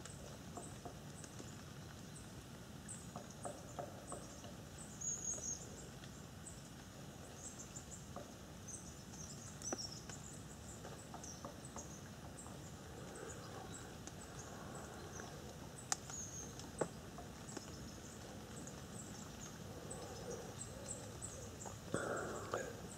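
Faint, high, short chirps of small birds scattered throughout, over a quiet steady hiss of outdoor ambience. Two sharp clicks about a second apart come about two-thirds of the way in, and a brief rustle just before the end.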